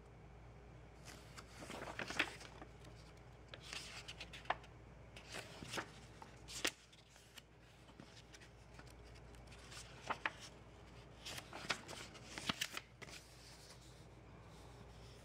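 Paper rustling and crackling as a paper instruction manual is handled and its pages flipped, faint, in several short spells with quieter pauses between them.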